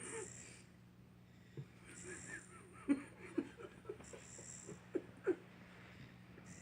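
Basset hound puppy snoring in its sleep, with a high wheezy hiss on breaths about two seconds apart and a run of short, sharp snorts in the middle.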